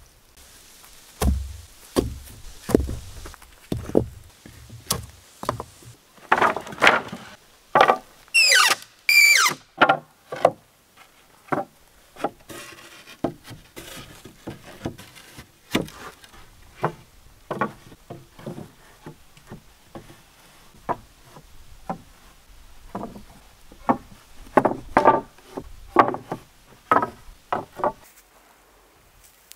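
Pallet boards being handled and laid down: a long series of separate wooden knocks and clatters, wood on wood, with a short run of high squeaks about eight to nine seconds in.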